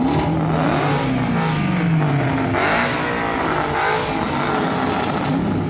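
Muscle car engines revving as the cars drive past one after another, the engine note rising and falling several times.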